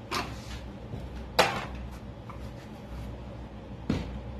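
Sharp knocks and light clatter of objects being handled at a workbench, the loudest knock about a second and a half in and a smaller one near the end, over a low steady hum.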